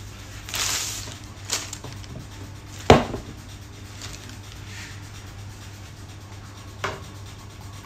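Plastic parts of a food processor being handled and fitted, not running: a short rustle, a click, then a sharp knock about three seconds in, and another click near the end, over a low steady hum.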